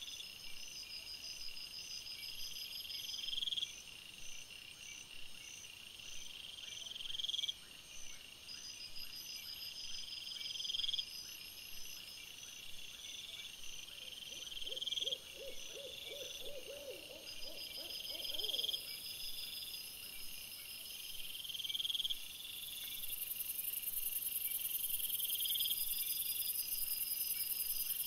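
Night woodland sound from a trail camera, played back fast. High, rapid chirping and pulsing keeps restarting and cutting off every few seconds where short clips are joined. A run of quick, lower pulses sounds for about five seconds midway, and a steady high hiss comes in near the end.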